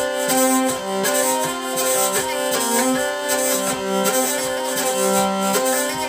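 Hurdy-gurdy being played: the hand-cranked wheel sounds the strings, and a keyed melody moves over steady drone strings held underneath.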